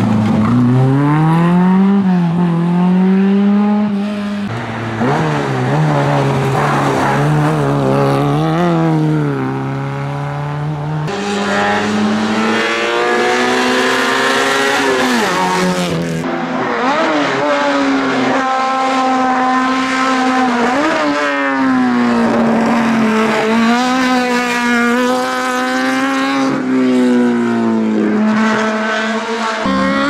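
Fiat 127 race cars' small four-cylinder engines revving hard uphill: the pitch climbs through each gear, drops at every shift or lift, and climbs again. Several separate runs follow each other with sudden changes between them.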